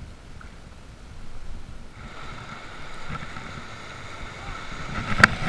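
Water rushing around an inflatable packraft running shallow river rapids, growing louder about two seconds in. A single sharp knock near the end.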